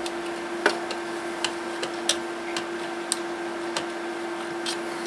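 Light, irregular clicks and taps, about half a dozen, as a WD-40 aerosol can and its straw are handled over an opened boombox's switches, over a steady low hum.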